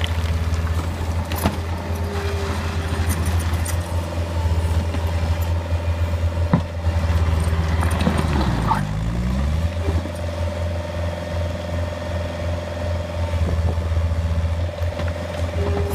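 Bobcat T140 compact track loader's diesel engine running steadily as the machine works. About eight seconds in the engine pulls down in pitch under load and recovers. A couple of sharp knocks sound along the way.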